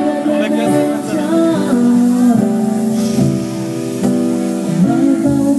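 Live amplified music: a vocalist singing long, held melodic lines over guitar and band accompaniment.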